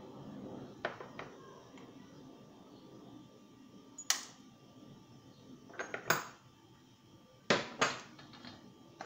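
A handful of sharp clicks and taps as small plastic seasoning containers and a spoon knock against a black enamel pot while spices are shaken in. The loudest taps come near the middle and a close pair toward the end.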